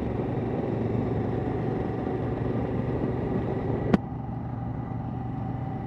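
Motorcycle engine running at a steady speed while riding, heard from on the bike with wind and road noise. A single sharp click about four seconds in, after which the sound is a little quieter.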